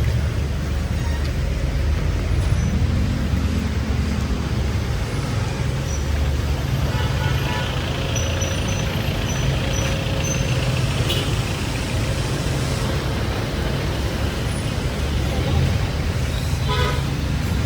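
City street traffic over a steady hiss of rain: vehicle engines running in a low rumble, with a horn tooting about seven seconds in and again near the end.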